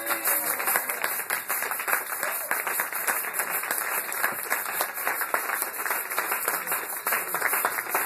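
Congregation clapping and applauding, a dense steady patter of many hands as the dance ends.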